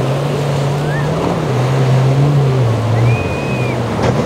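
Boat engines running hard through rough inlet surf, their note rising and falling as the throttle works over the waves, with the wash of breaking waves and wind on the microphone.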